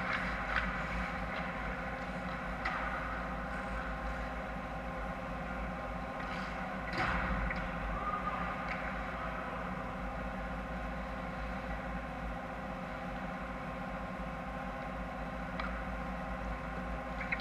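Ice hockey rink during play: a steady hum, with scattered sharp clacks of sticks and puck and skate scrapes. The loudest clack comes about seven seconds in, as play reaches the net.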